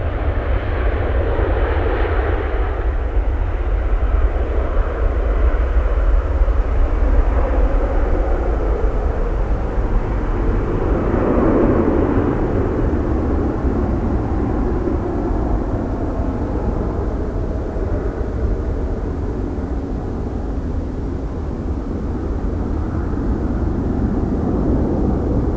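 Jet engines of a Boeing 737-800 airliner (CFM56-7B turbofans) giving a continuous rushing rumble that swells about two seconds in and again around eleven seconds in, with the higher part of the noise slowly fading toward the end.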